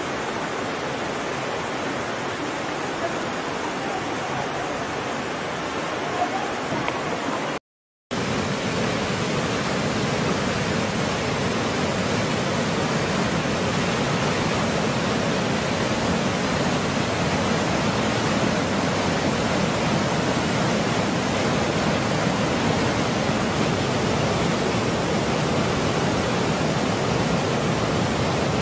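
Waterfall: water rushing and splashing in a steady even wash of noise. A moment of total silence about a quarter of the way in breaks it, and it resumes slightly louder and brighter.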